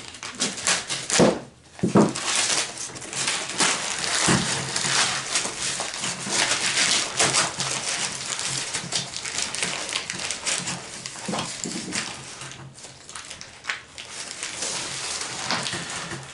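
Packing material being pulled out and crumpled by hand: continuous rustling and crinkling with quick crackles and a few sharper rips, as a parcel of ammunition is unwrapped.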